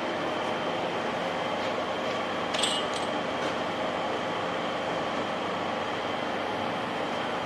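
Steady running of a motor-driven machine: an even mechanical hum with several steady tones through it. There is a brief metallic clink about two and a half seconds in.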